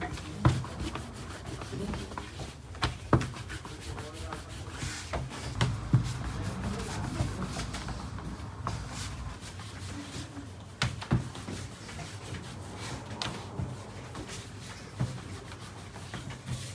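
Wooden rolling pin rolling out dough on a floured metal tabletop: a steady rubbing and scraping, with sharp knocks every few seconds as the pin or hands hit the table.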